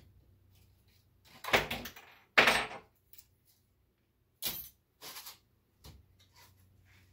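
A multi-layer steel head gasket being handled: a few short rattles and knocks, the two loudest about one and a half and two and a half seconds in, with smaller ones later.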